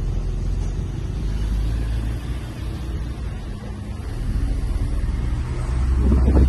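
Steady low rumble of motor vehicles and road traffic, swelling louder near the end.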